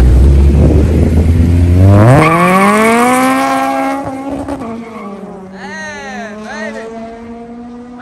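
K20-swapped Honda Civic EG's four-cylinder engine accelerating hard away. Its note climbs steeply through the revs about two seconds in and drops with an upshift a couple of seconds later, then fades as the car drives off.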